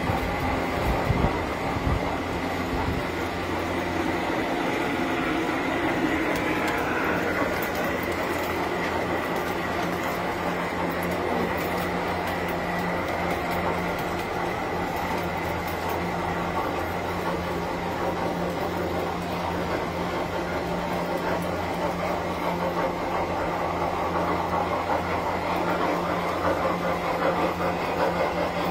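Tinplate model trains running on three-rail metal track: a steady rumble and clatter of metal wheels on the rails, with a steady hum underneath.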